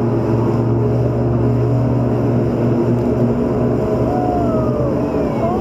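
Tour boat's engines running steadily underway on the river, with a low, even hum under the rush of water and wind.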